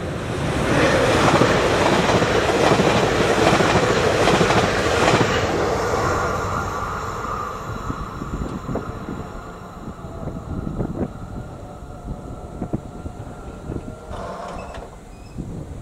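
ČD class 660 electric multiple unit passing over a level crossing: loud wheel-on-rail rumble and clatter for the first six seconds or so, then fading away. The crossing's electronic warning bell rings on under it and stops about fourteen seconds in, as the barriers lift. Wind buffets the microphone.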